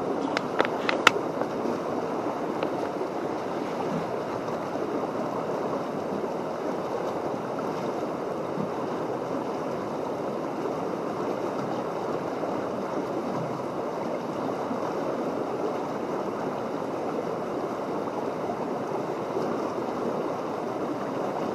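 Brook water running steadily: an even rushing babble with no rhythm. A few sharp clicks in the first second.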